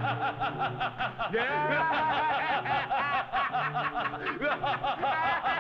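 A cartoon genie's voice laughing in rapid, repeated ha-ha-ha bursts, about six a second. The laugh comes in a few bouts, each opening with a rising whoop.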